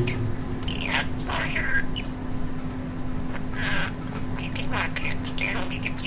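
Budgerigar chattering in quick, irregular high warbles and clicks, which the owner captions as spoken words. A steady low hum runs underneath.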